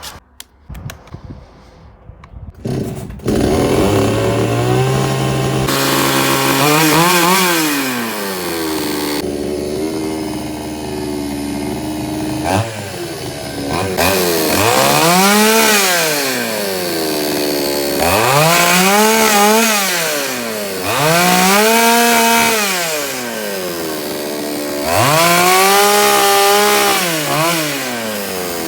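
Ural chainsaw's two-stroke engine coming in loudly about three seconds in after a few clicks, running, then revved up and down again and again, each rev rising, holding briefly and falling back over a few seconds.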